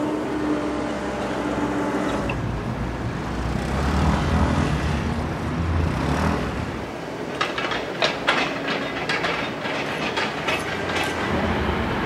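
Outdoor city ambience: a steady vehicle rumble that swells about four seconds in, then a run of sharp, irregular clattering knocks over the second half.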